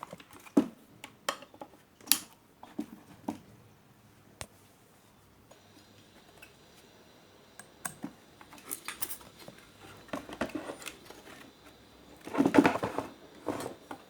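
Small metallic clicks and clinks of a screwdriver and loose screws being handled while an Astro home theater unit is dismantled, with a louder burst of handling noise near the end.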